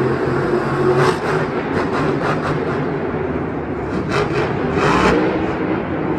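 Monster truck's supercharged engine running and revving as the truck drives, with louder bursts of throttle about a second in and again around four to five seconds.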